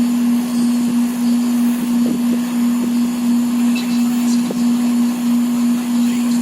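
Split-type air conditioner running with a steady, loud hum from its compressor over the noise of its fan, while R22 refrigerant is being charged into the system.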